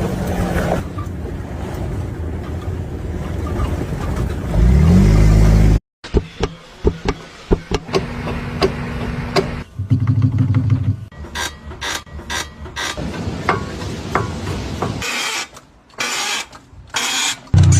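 Car engine running, revving up briefly about five seconds in. After an abrupt cut come a series of sharp knocks and clunks and short bursts of mechanical noise.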